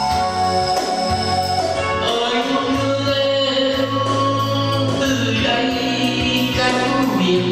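Vietnamese ballad with a keyboard accompaniment; a man's voice comes in singing about two seconds in, over the steady instrumental backing.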